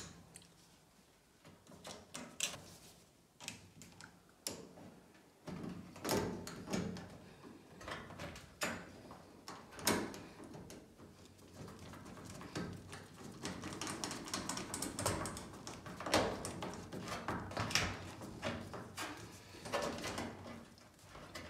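Screwdriver working the centre screw of an electric dryer's power-cord terminal block to fasten the neutral wire, with irregular small clicks, scrapes and rattles of metal and wire being handled. The sounds are sparse at first and come more often after about six seconds.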